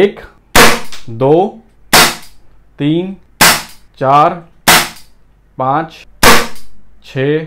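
Umarex Beretta M92A1 CO2 blowback air pistol firing .177 pellets, five sharp cracks about a second and a half apart. A voice speaks briefly between the shots.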